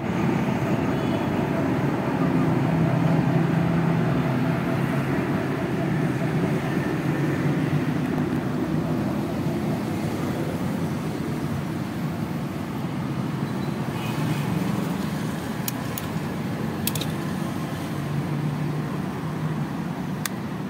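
Steady street traffic rumble, with a few sharp clicks in the last third as the fibre clamps and lid of an optical-fibre fusion splicer are handled.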